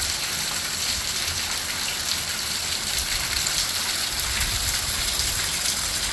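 Heavy rain falling steadily, a dense hiss of drops hitting surfaces.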